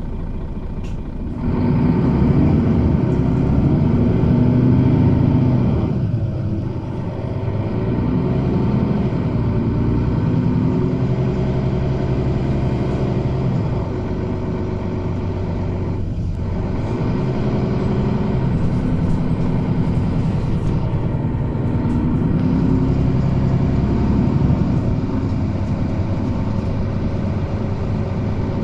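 Bus engine heard from inside the passenger cabin, pulling away about a second and a half in and then running under load, its note rising and falling several times as the bus changes speed, over a steady rumble of road noise.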